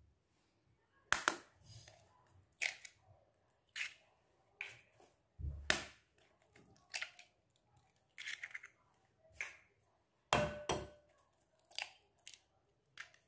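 Three eggs cracked one by one into a glass bowl: a series of sharp taps and cracks of eggshell, about a dozen in all, spaced irregularly.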